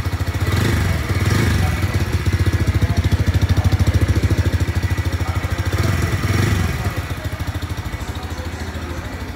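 Bajaj Freedom 125's single-cylinder 125 cc engine idling on CNG, with a steady rapid putter that gets a little quieter near the end.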